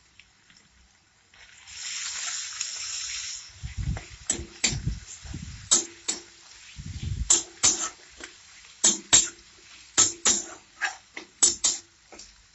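Wet garlic paste frying in hot mustard oil in a metal kadai: a loud sizzle starting about a second and a half in and lasting about two seconds. After that a metal spatula stirs and scrapes around the pan, making sharp clinks and scrapes about every half second, with a few low thumps.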